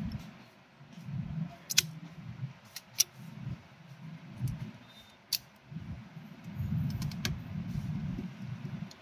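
A few sharp, separate clicks and taps of a thin repair tool working on a tablet's circuit board and connectors, over low, uneven rubbing and handling noise.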